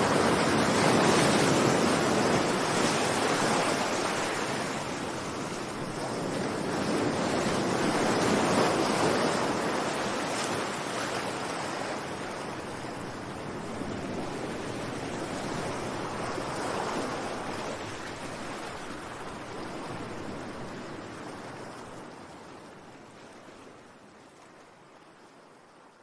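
Sea surf: waves breaking and washing in, swelling loud about three times, then fading away gradually over the last several seconds.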